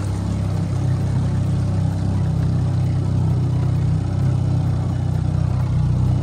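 Tiller-steered outboard motor running steadily under way, with water and wind noise as the skiff moves across flat water.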